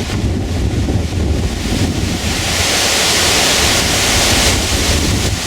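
Strong wind buffeting the microphone, a steady rushing with a low rumble, swelling into a louder hiss for a couple of seconds midway.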